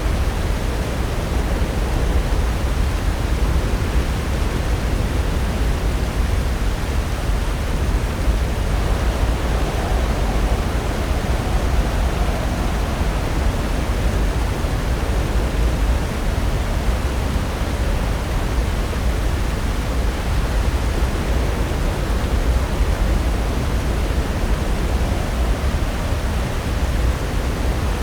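Pacific Ocean surf breaking, a steady rush of waves that swells slightly about a third of the way in.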